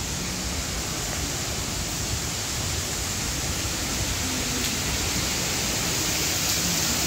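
Steady rush of running water from the pool deck's infinity lap pool, growing gradually louder.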